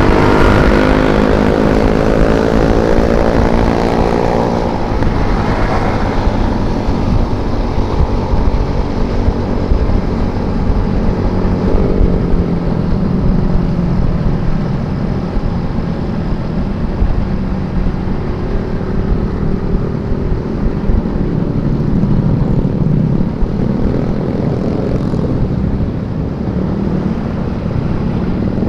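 Riding a Yamaha scooter: wind buffets the microphone over a steady rumble of motorcycle engines. An engine rises in pitch as it accelerates over the first few seconds, and again more faintly later on.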